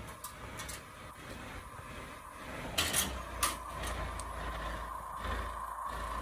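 Delivery lorry's engine running steadily as its crane lifts the container, the rumble swelling after the first second. A few sharp metallic knocks about three seconds in.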